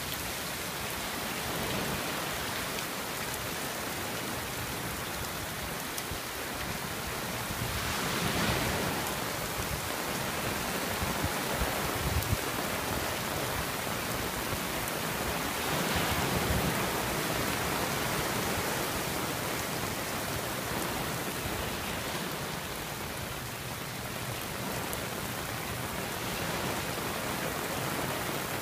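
Steady rain falling, heard from under a fabric beach umbrella with water dripping off its edge. The rain swells louder about a third of the way in and again just past the middle.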